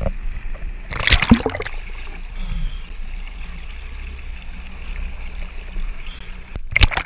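Jet ski running on a river: a steady low engine hum under rushing water and spray against the hull. Louder bursts of splash noise come about a second in and again near the end.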